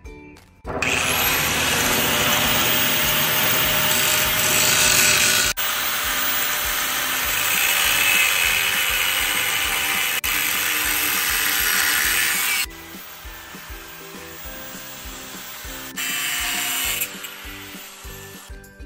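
Angle grinder with a thin cut-off wheel cutting through steel stock, a loud steady grinding that starts abruptly about a second in and runs for roughly twelve seconds with two brief breaks. After a quieter stretch it cuts again briefly near the end.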